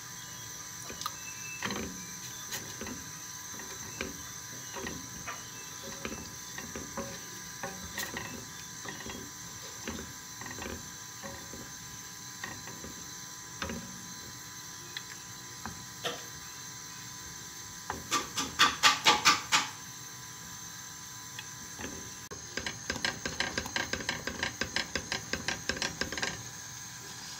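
Wooden spoon stirring thick porridge in a stainless steel saucepan, knocking and scraping against the pan's sides over a faint steady hiss. About two-thirds through comes a loud quick run of spoon strikes against the pan, under two seconds long, and near the end a lighter, faster run lasting about four seconds.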